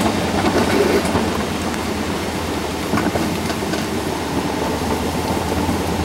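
Alpine coaster cart running fast along its tubular steel rails: a steady rumbling rush of wheels on the track, with a few faint clicks.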